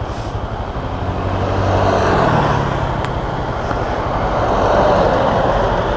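Motorcycle engine running while riding, with steady wind and road noise; it grows a little louder about two seconds in and again near five seconds.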